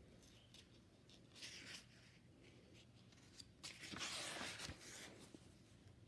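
Pages of a picture book being handled and turned: paper rustling briefly about a second and a half in, then a longer, louder rustle around four seconds in as the page turns over.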